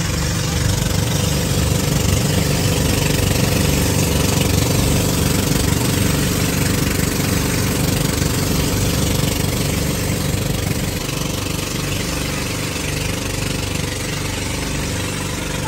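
An engine running steadily at an even speed, with a fast, throbbing low pulse under a constant rushing hiss.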